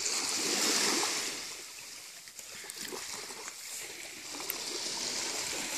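Waves washing over a pebble beach: a hiss that swells in the first second, dies down, and swells again in the second half.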